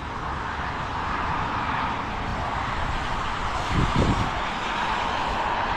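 Steady rushing hiss of traffic on the rain-wet highway below, with a brief low hum swelling and fading about four seconds in.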